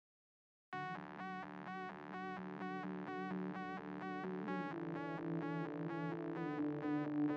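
Electronic intro music starting just under a second in: a bright synth note pulsing about twice a second over held low chords.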